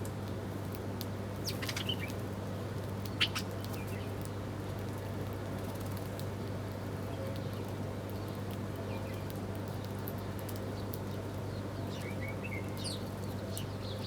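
Wild birds giving a few scattered short chirps, with a sharp click about three seconds in, over a steady low hum.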